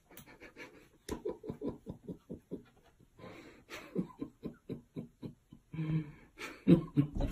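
A cat scratching and pawing at a closed door in quick repeated strokes, about five a second, with a few louder knocks near the end.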